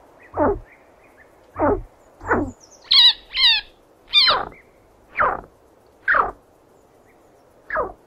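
Chinchilla squeaking: a series of short calls, each falling steeply in pitch, about one a second, with two higher-pitched calls close together about three seconds in.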